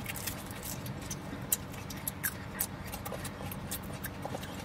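People chewing food close to the microphone: wet mouth clicks and lip smacks at irregular intervals, over a low steady hum.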